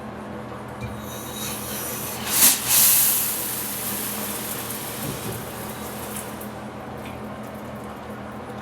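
Water spraying from a handheld shower head: a hiss that swells about a second in, peaks sharply, then fades away over a few seconds.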